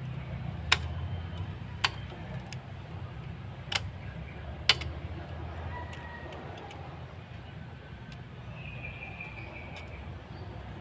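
Sharp clicks of a spring-loaded desoldering pump being cocked and fired while desoldering a circuit board. There are four loud clicks in the first five seconds and a few fainter ones after, over a steady low hum.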